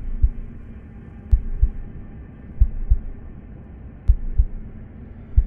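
Heartbeat sound effect: low double thumps (lub-dub) repeating evenly, five beats at about one every 1.3 seconds, over a low steady hum.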